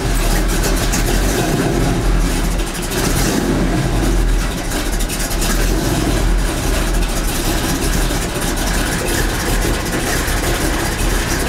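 1984 Chevy C10 truck engine idling steadily just after a start, running smoothly with no belt squeal.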